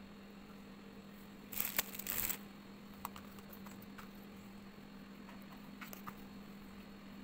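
A short burst of rustling and crinkling about one and a half seconds in, from something being handled, then a few light clicks, over a steady low hum.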